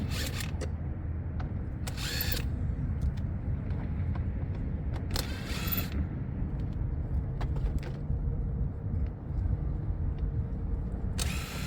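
A tool working a fastener in four short bursts of about half a second each, over a steady low rumble.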